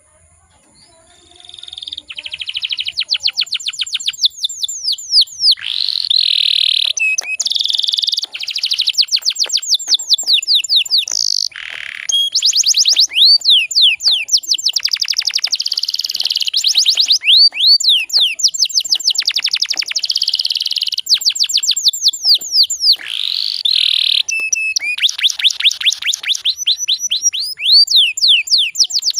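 Domestic canary singing in fast rolling trills: runs of high, sweeping notes repeated many times a second, with short breaks between phrases. The song starts about a second and a half in.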